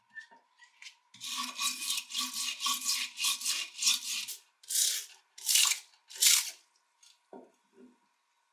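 Wire brush scrubbing the rusty steel screw of an old wrench as it soaks in liquid: quick back-and-forth strokes about three a second, then three slower, separate strokes and a couple of light knocks near the end.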